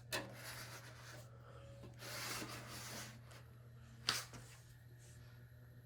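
Faint rubbing noise over a steady low hum, with a sharp click at the start and another about four seconds in.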